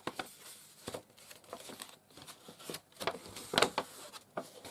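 Sheet of map-printed paper rustling and crackling as it is unfolded and handled, with the loudest crackle about three and a half seconds in.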